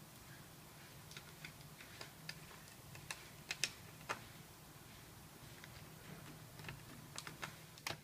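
Faint small clicks and ticks of a precision screwdriver and tiny Torx screws against the metal of a laptop's optical drive bracket as the screws are undone. The clicks are irregular, a few a second, loudest around the middle, over a steady low hum.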